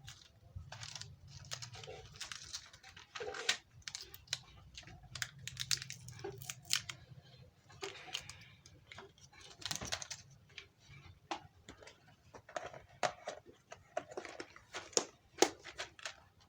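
Irregular small clicks, taps and scratches of hand tools working inside an opened feature phone while a speaker is taken out, over a faint low hum.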